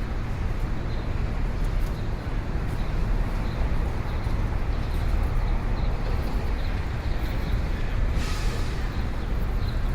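Busy city street ambience: a steady low rumble of traffic with a faint wash of crowd noise, and a brief sharp hiss about eight seconds in.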